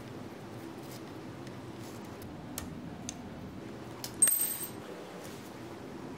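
A few faint clicks, then about four seconds in a sharp metallic clink with a brief high ring, as a small drilled part is knocked against the metal jaw of a drill-press vise.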